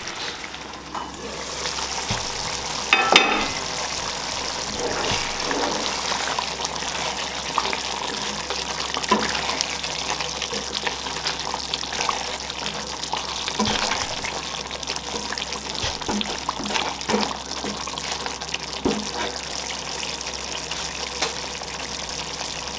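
Curry gravy sizzling in a pan as it is stirred, the spatula scraping and now and then knocking against the pan, most sharply about three seconds in.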